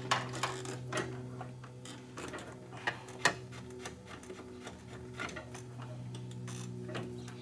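Scattered clicks and clinks of hands and tools working the fittings and lines of a pickup-sized radiator loose, the sharpest knock about three seconds in, over a steady low hum.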